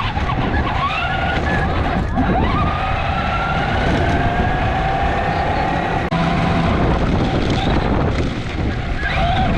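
Whine of an electric vehicle motor on the move, one tone climbing slowly in pitch over a few seconds above a steadier one, with wind rumbling on the microphone.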